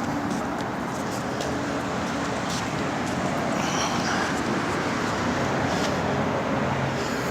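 Steady road noise from a vehicle driving, with a low engine note under it.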